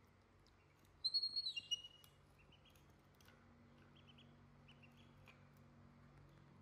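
Ducklings peeping: a quick run of loud, high peeps about a second in, then a few fainter scattered peeps.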